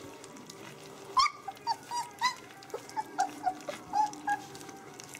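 Three-week-old puppy whimpering: a run of about ten short, high squeaks starting about a second in, the first the loudest.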